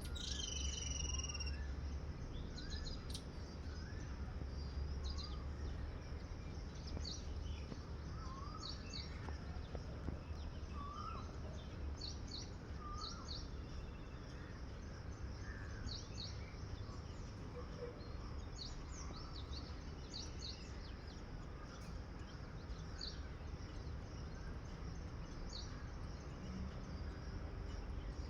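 Scattered short, high-pitched chirps and calls from small animals, with a falling whistle-like call right at the start, over a steady low rumble.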